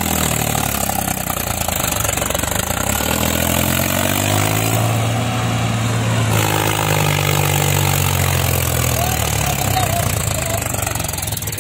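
Mahindra 265 DI tractor's three-cylinder diesel engine working under load, pulling a heavily loaded soil trolley through soft ground. The engine note rises and falls a little, then runs steady.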